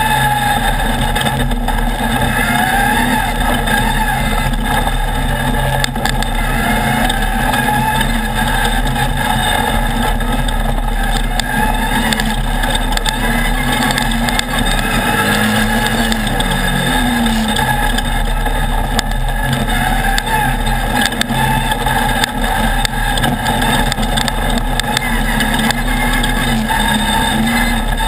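Off-road race buggy's engine, heard on board, running hard throughout, its pitch repeatedly rising and falling as the throttle opens and closes over the dirt track. A steady rushing noise runs under it, with occasional knocks.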